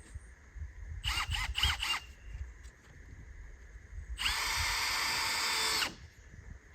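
A handheld power drill triggered in four quick short pulses, each spinning up and down, then run steadily for almost two seconds.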